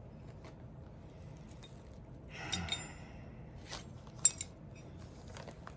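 Old metal gun parts being handled: a brief rustle, then a few sharp metallic clinks, the loudest about four seconds in.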